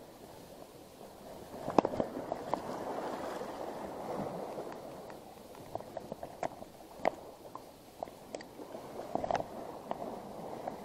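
Sea water washing and gurgling among shoreline rocks, with a scattering of sharp clicks and taps, the loudest about two seconds in.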